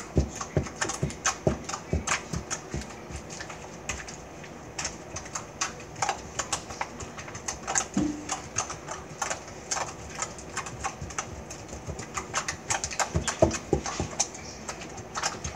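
Slime being poked and squeezed by hand on a countertop: a steady, irregular run of small sticky clicks and pops, several a second.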